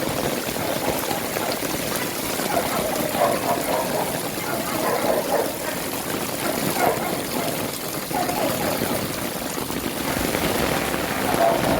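Heavy rain falling steadily, with water running and trickling.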